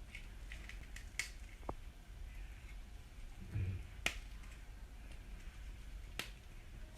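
Scattered light clicks and taps, three of them sharper, with a soft low thump about three and a half seconds in.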